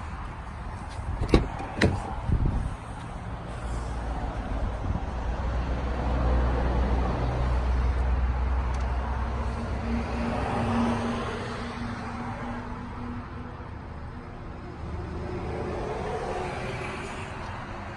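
Three sharp clunks in quick succession, then a low car engine rumble that swells over several seconds and fades away.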